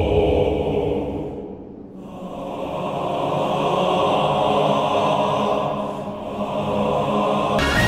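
Background music: a sustained choir-like chant drone with a hissing whoosh over it, fading away about a second and a half in and swelling back, then dipping again; a different piece of music takes over near the end.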